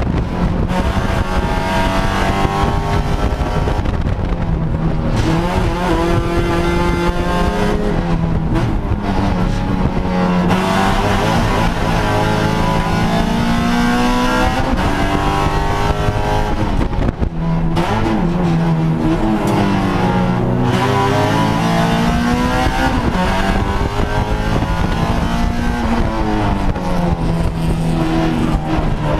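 2013 Honda Civic Si HPD touring car's four-cylinder engine, heard from inside its cabin at race pace, revving hard: the pitch climbs through each gear and drops back at shifts and braking, over a steady rush of road noise.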